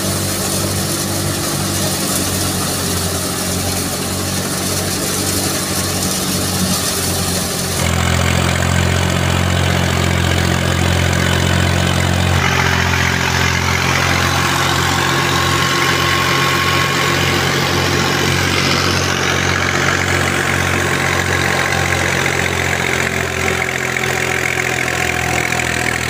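Tractor engine running steadily under load, driving a wheat thresher, with the thresher's noise over the pulsing engine note. The sound jumps louder and deeper about 8 seconds in and changes again about 12 seconds in.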